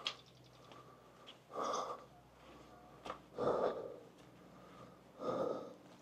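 A person's heavy breathing while climbing on foot: three loud breaths about two seconds apart.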